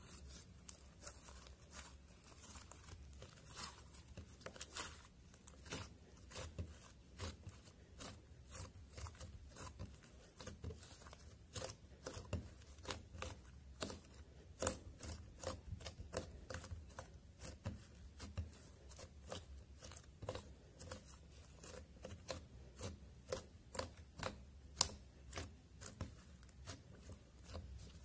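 Thick pink slime made with lipstick, glitter and baby powder, squeezed and pulled apart by hands on a glass plate, giving many sharp sticky clicks and pops at an irregular pace of a few each second.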